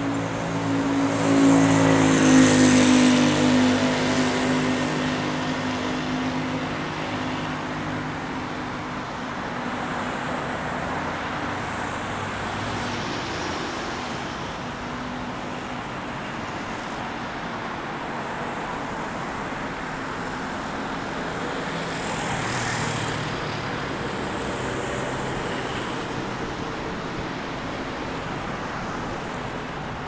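Road traffic on a busy multi-lane road. In the first few seconds a motor vehicle passes close, its engine note slowly dropping in pitch. Then a steady wash of traffic and tyre noise follows, and another vehicle passes about three-quarters of the way through.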